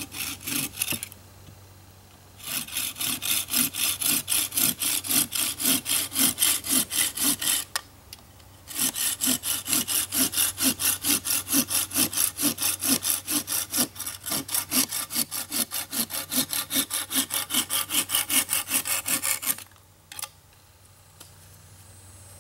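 Hand saw cutting off the wooden wedge and handle end that stick out of the top of an axe eye, in quick back-and-forth strokes. It pauses briefly twice and stops shortly before the end.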